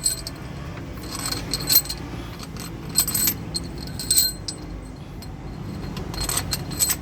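Metal parts clinking and rattling, with several sharp clinks a second or so apart, as steel head bolts are handled and set into the engine's cylinder head.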